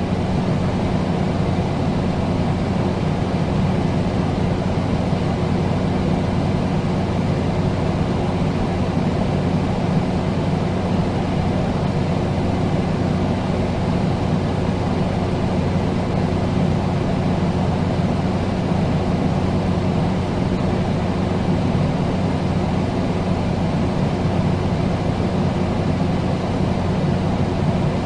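Air conditioner running steadily: a constant rush of air over a low electrical hum.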